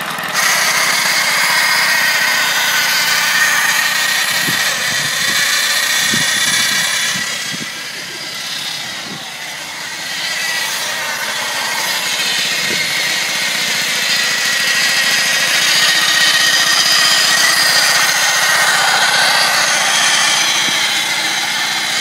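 1950s Atco motor cylinder lawnmower running as it is pushed over grass, its small petrol engine and spinning cutting reel giving a steady high-pitched whirr that drops in level for a couple of seconds about eight seconds in.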